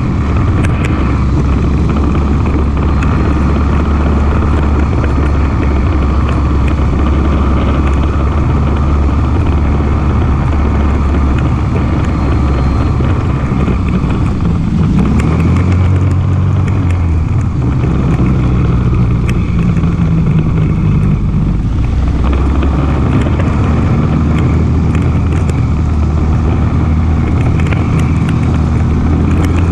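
ATV engine running steadily while riding, its note changing with the throttle for several seconds around the middle.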